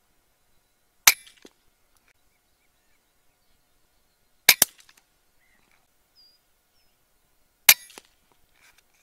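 Three shots from a .30-calibre HM1000X PCP air rifle, each a sharp crack, about three seconds apart; the second is a quick double.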